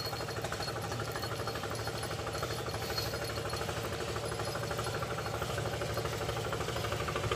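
Small engine idling steadily with a rapid, even chug.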